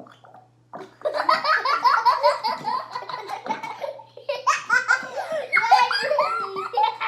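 People laughing, starting about a second in, in two long bursts of rapid, pulsing laughter.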